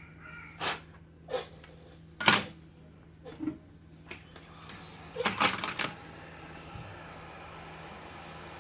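Sharp clicks and knocks of small tools and phone parts being handled on a repair bench. The loudest comes a little over two seconds in, and there is a quick rattling cluster around five seconds, after which a steady faint hiss remains.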